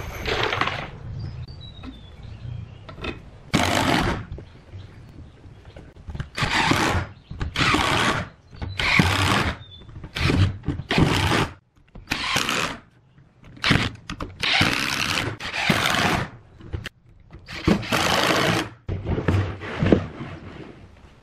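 Cordless drill driving long wood screws into pine, about a dozen in turn. Each screw takes a burst of a second or so, with short pauses between.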